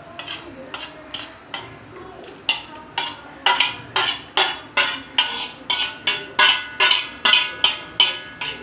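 Stainless steel bowl being knocked and tapped to shake chopped garlic out into a pan: a run of sharp metallic knocks with a faint ring, a few at first, then about two or three a second from about two and a half seconds in.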